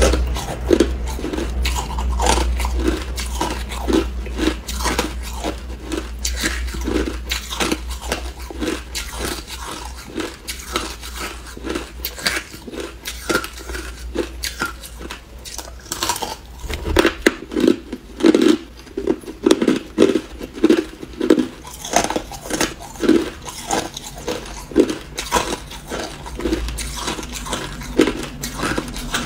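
A person biting and chewing chunks of hard ice: a continuous run of crisp, crackling crunches, at times about two a second.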